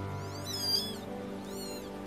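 A newborn kitten mewing twice, thin high-pitched cries about a second apart that each rise and fall, over background music.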